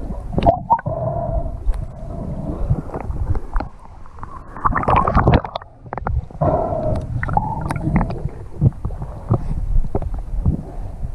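Underwater sound at a camera held just below the surface by a swimming snorkeler: muffled gurgling and sloshing of water with a low rumble, broken by many small clicks and knocks.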